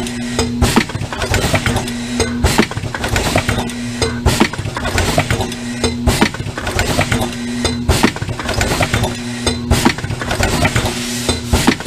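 WCP 12/32 rotary cup-filling machine running through its filling cycle: a sharp clack about every two seconds, with a steady hum that breaks off around each clack and a hiss throughout.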